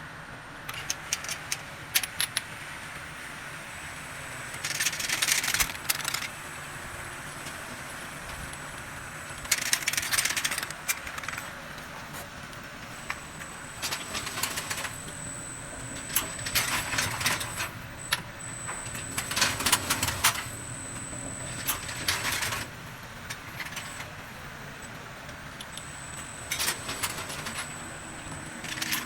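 Automatic bottle feeder and bottle washing machine running: a steady machine hum, with bursts of bottles clattering and clinking together every few seconds and a faint high whine that comes and goes.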